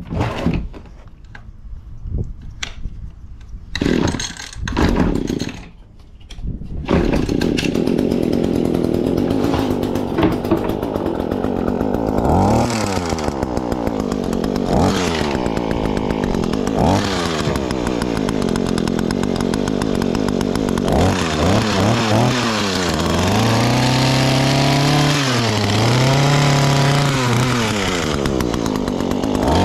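Echo HC-152 hedge trimmer's small two-stroke engine: after some knocks and short bursts it runs from about seven seconds in, and is then revved up and down again and again, its whine rising and falling, several times in quick succession near the end.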